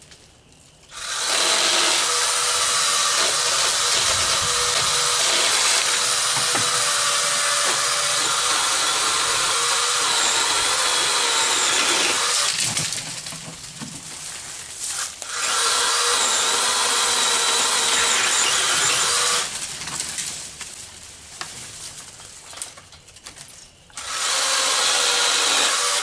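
A 6-inch mini electric chainsaw running and cutting wood in three runs: a long one of about eleven seconds, a shorter one of about four seconds, and a brief one starting near the end. The motor and chain give a steady whine, with quieter gaps between the runs.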